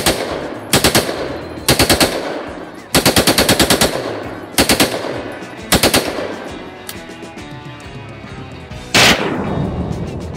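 A fully automatic gun fired in short bursts of three or four shots, with one longer burst of about ten rounds a few seconds in, each burst trailing off in echo. Near the end, after a pause, comes one single louder shot.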